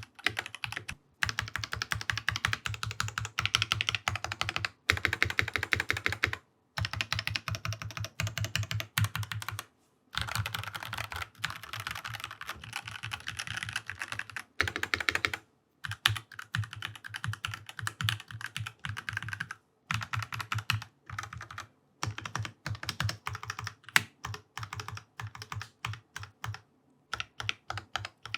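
Fast typing on a mechanical keyboard fitted with Drop DCX doubleshot ABS keycaps: dense runs of keystroke clacks broken every few seconds by short pauses.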